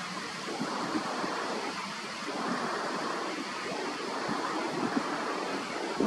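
Steady rushing of flowing water, an even hiss-like wash with no clear rhythm.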